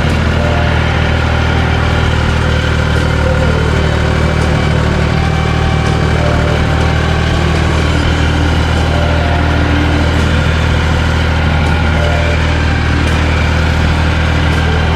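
John Deere 350 crawler dozer's engine running steadily while it works, pushing dirt.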